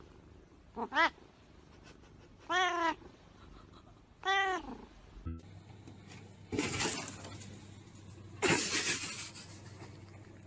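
Domestic cat meowing three times, short calls rising then falling in pitch, about a second and a half apart. Later come two short bursts of noise.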